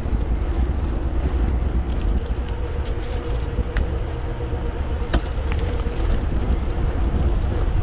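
Wind rumbling on the microphone of a camera riding on a mountain bike rolling along a paved path, with a faint steady hum and a couple of sharp clicks about four and five seconds in.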